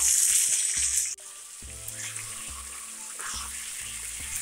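Raw chicken pieces dropped into hot oil in a kadai sizzle loudly for about a second, then drop off suddenly to a steady, quieter sizzle as they are stirred with a spatula.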